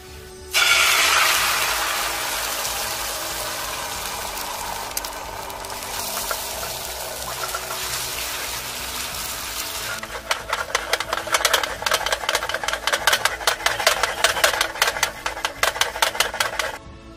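Beaten egg poured into a hot oiled frying pan hits with a sudden loud sizzle that settles into a steady, slowly fading sizzle. From about ten seconds in, chopsticks stir the setting egg quickly, scraping and clicking in the pan several times a second, until the sound cuts off just before the end.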